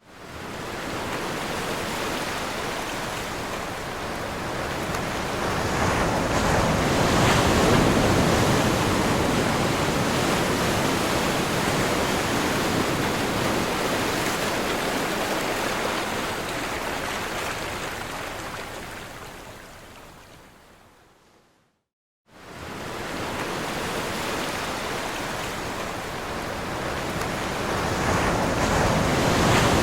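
Ocean waves breaking, a continuous rush of surf. It swells to its loudest about eight seconds in and slowly fades away near twenty seconds. After a moment of silence it starts again abruptly and builds once more.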